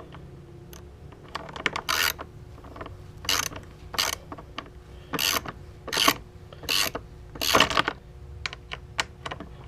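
A hand socket ratchet clicking in short back-and-forth strokes on the recoil-cover bolts of a Honda walk-behind lawnmower. There are about seven quick bursts of clicks, roughly a second apart, with fainter clicks near the end.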